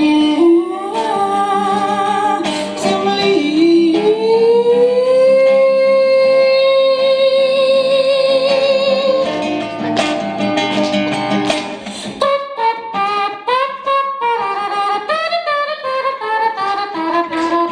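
A woman singing to her own acoustic guitar accompaniment. About four seconds in she slides up into a long held note with vibrato. In the second half she sings quick, wavering short phrases over guitar strums.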